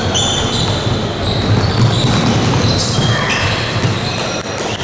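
Basketball game play: sneakers squeaking on a hardwood court and a basketball bouncing as players run downcourt, over steady gym noise. Short high squeaks come and go throughout.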